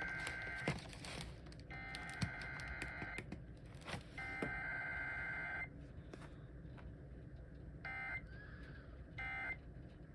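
Emergency Alert System SAME data tones: rapid warbling digital bursts that switch between two tones, one about 1.5 kHz and one about 2 kHz. Three header bursts of about a second and a half each come a second apart, and near the end two short bursts of the end-of-message code follow.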